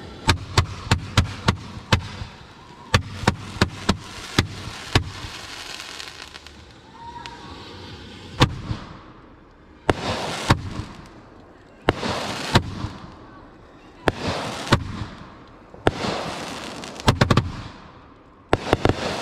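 Fireworks going off: a quick string of sharp bangs in the first five seconds, then louder single booms about every two seconds, each trailing off in roughly a second of hiss.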